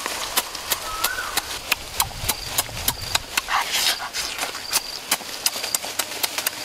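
Close-up mouth sounds of someone eating grilled chicken wing with his hands: wet lip-smacking and chewing clicks, irregular, several a second.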